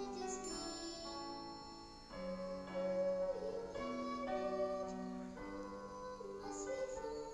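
Keyboard playing an instrumental passage of slow held chords, changing about once a second.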